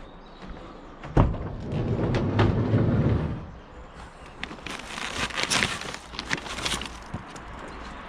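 Handling of dumped items: a sharp knock about a second in, a couple of seconds of low scraping and rustling, then a run of crackly clatters and rustles.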